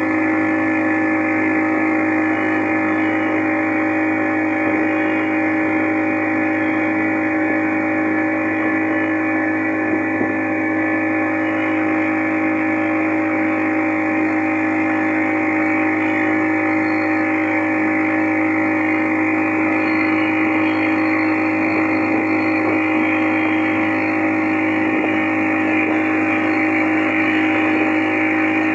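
Motorboat engine running at a steady speed while underway: an even, unchanging drone with a few steady tones in it.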